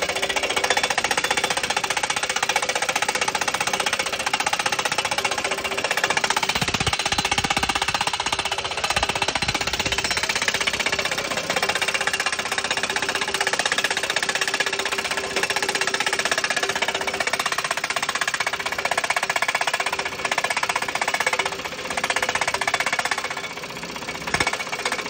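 Tractor-mounted hydraulic post driver hammering a steel crash-barrier post into the ground: a rapid, continuous pounding over the running tractor engine, stopping at the end as the post reaches depth.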